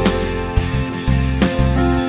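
Background music with plucked and strummed guitar chords.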